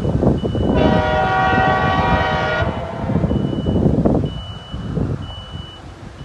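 Horn of the approaching CSX track geometry train, one blast of about two seconds held on a chord of several pitches, over a low rumble that drops off about four seconds in.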